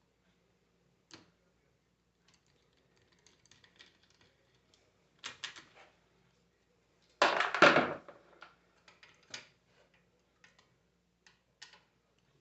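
Metal parts and tools clicking and knocking as a 24-volt truck alternator is taken apart by hand, with one loud clatter of under a second just past halfway.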